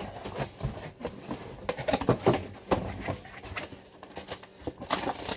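A box and its packaging being opened and handled by hand: a busy run of irregular rustles, scrapes and clicks.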